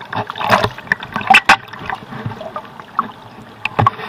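Shallow seawater splashing and sloshing right against an action camera held at the waterline, in irregular loud bursts.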